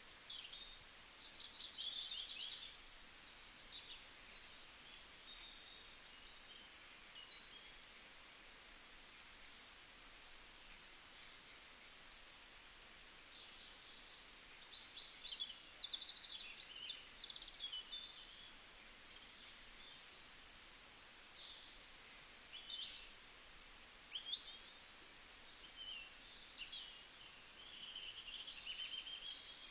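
Several wild birds singing and calling together: a steady mix of short, high chirps, quick trills and brief whistled glides, overlapping throughout, with a soft background hiss.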